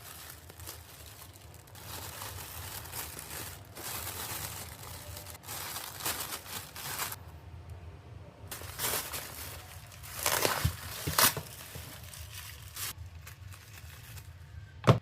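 Packaging being unwrapped by hand: irregular crinkling and rustling with tearing sounds, and a couple of louder sharp rips about two-thirds of the way through.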